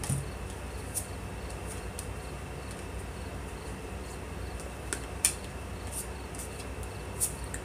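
Quiet room tone: a steady low hum with a faint, steady high-pitched tone over it, and a few soft clicks about 1 second in, around 5 seconds in and near the end.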